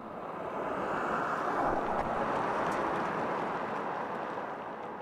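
Rushing noise of a vehicle passing by on a road, with no clear engine note: it swells to its loudest about two seconds in and fades away.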